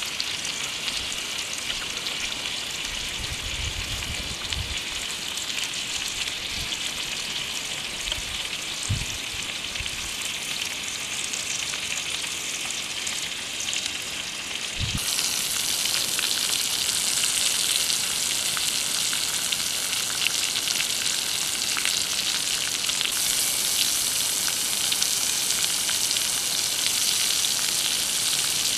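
Pig intestines sizzling and crackling as they fry on a hot flat rock over a fire, a steady hiss that grows louder about halfway through. A few low bumps come in the first half.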